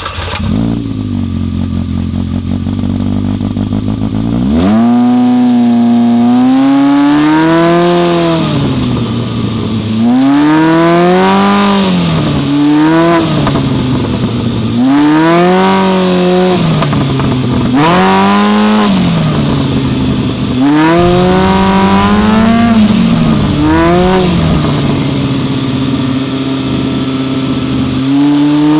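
Polaris RZR side-by-side's engine idling just after starting, then revved about ten times from about four and a half seconds in, the pitch climbing and dropping back every couple of seconds.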